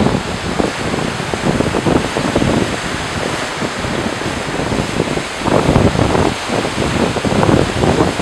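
Small waves breaking and washing up the sand around the pier's concrete pilings, with wind gusting on the microphone; the surge grows louder about two-thirds of the way through.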